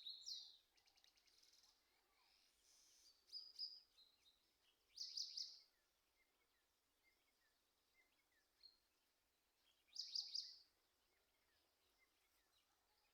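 A small songbird singing: short, high-pitched song phrases, the loudest about five and ten seconds in, with faint chirps in between.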